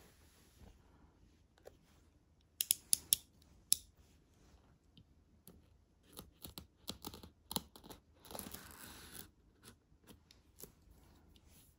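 Smartphone retail box and its packaging being handled and opened. A quick run of four sharp clicks comes about two and a half seconds in, then scattered softer clicks and taps, and a second-long scratchy rustle about eight seconds in.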